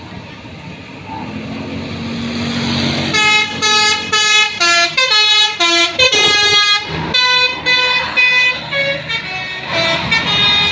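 Bus telolet horn: a bus's multi-tone musical horn playing a quick tune of short notes that jump from pitch to pitch. Before it, over the first three seconds, the bus grows louder as it comes closer.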